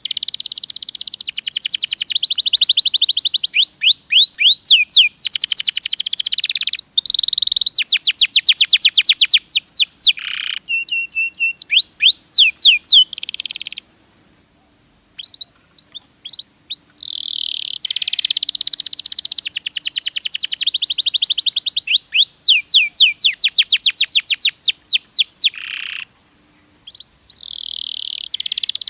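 Domestic canary singing long, fast trills of quickly repeated notes, phrase after phrase, with a short pause about halfway through and another near the end.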